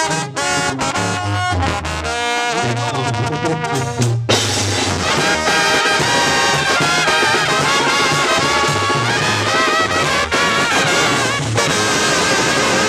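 Live Mexican banda brass section playing: trumpets and trombones carry the melody over a sousaphone bass line. About four seconds in, the band's sound grows fuller and denser.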